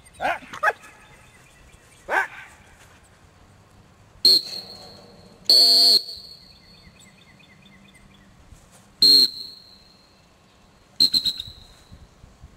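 Dog-training whistle blown in commands to a working Boykin spaniel: a short blast, a longer one of about half a second, another short blast, then a quick run of several short toots near the end. A few short calls come about a second and two seconds before the whistling.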